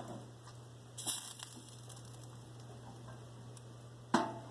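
A few light clicks and scrapes of a kitchen utensil on the toaster oven's metal broiler pan as chicken cutlets are turned, one about a second in and another near the end, over a steady low hum.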